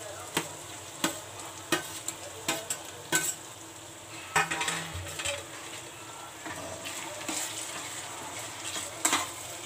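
Onion-tomato masala sizzling in a kadhai as roasted mashed brinjal is scraped in from a plate and stirred, with repeated sharp knocks of the spoon against the plate and pan.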